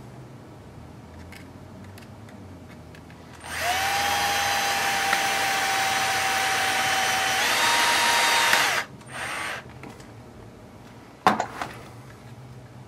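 Electric screwdriver driving a screw into the plastic roll cage: a steady motor whine for about five seconds, its pitch stepping up near the end before it stops, then a short second burst. A sharp click follows a couple of seconds later.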